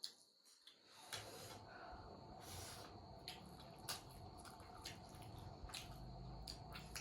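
Faint eating sounds from a noodle mukbang: scattered short clicks and wet smacks of chewing and utensils, over a low steady hum that comes in about a second in.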